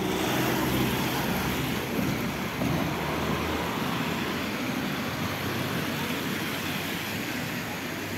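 City street traffic on a wet road: vehicles driving past with engine noise and tyre hiss, a bit louder in the first few seconds as something passes close by.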